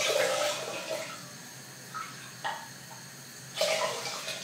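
Water poured from a jug into a saucepan of dry green lentils, a splashing pour for about a second. Then come two light knocks and a second short burst of noise near the end.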